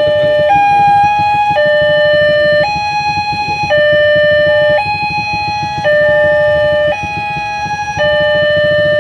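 Railway level-crossing warning siren sounding a two-tone alarm, switching between a higher and a lower pitch about once a second, over a low rumble.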